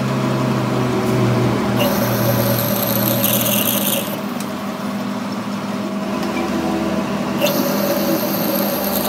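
Metal lathe running with a steady hum from its motor and gearing while a tool bar cuts an internal thread in the bore of a spinning steel part. Two cutting passes of about two seconds each add a high hiss, the first about two seconds in and the second near the end.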